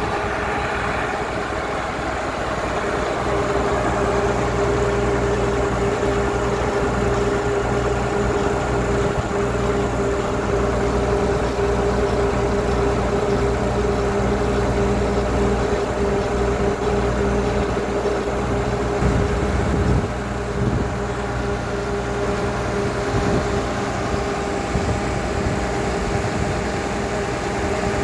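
ZT-18 horizontal directional drilling rig running steadily, its engine and hydraulics humming with a constant whine over a low engine drone.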